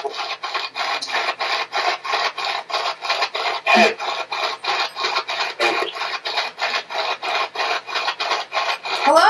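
SB-11 spirit box sweeping through radio stations: rapid, choppy pulses of radio static at about four to five a second. Just before four seconds in one snatch is louder, which the investigators caption as "hey".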